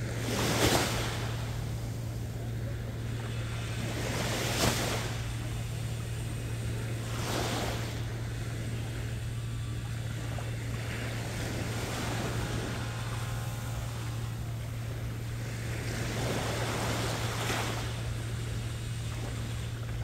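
Small sea waves washing against a concrete jetty, a rushing splash every few seconds, over a steady low hum.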